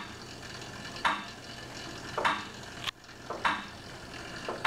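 Monark friction-braked cycle ergometer being pedalled at the light first-stage load of 150 kgm/min: a repeating swish about once every second and a bit, one per pedal revolution at the set 50 rpm.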